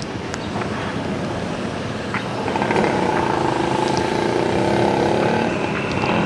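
Road traffic: a motor vehicle's engine grows louder about two seconds in and holds a steady pitched note for a few seconds as it passes, then fades, over continuous road noise.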